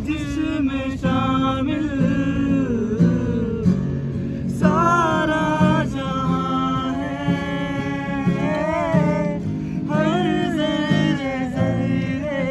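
Music: a voice singing a melody over guitar accompaniment.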